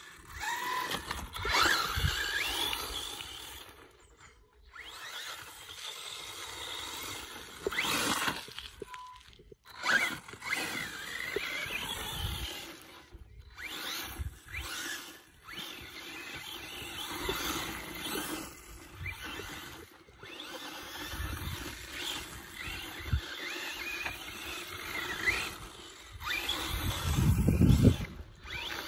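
RC buggy driving hard on dirt, its Robitronic Razer Eight brushless motor whining up and down in pitch as it accelerates and brakes, with tyres scrabbling and spraying dirt. A loud low rush comes near the end as the buggy kicks up dust close by.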